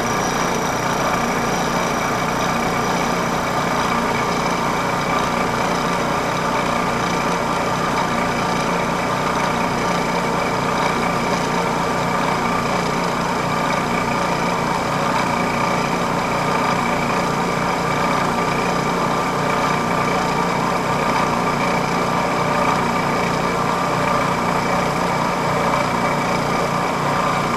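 Vertical milling machine running a single-edge fly cutter in a facing cut across a brass plate: a steady machine whir with several constant tones.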